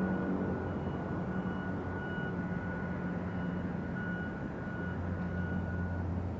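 Steady low engine hum from somewhere off-scene, with a faint high whine over it that stops about six seconds in.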